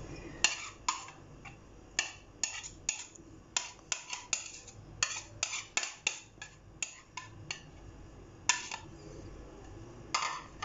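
Metal spoon clinking and scraping against a ceramic plate and bowl while chicken sandwich filling is spooned out and spread on bread: a run of sharp, irregular taps through most of the stretch, then two more spaced apart near the end.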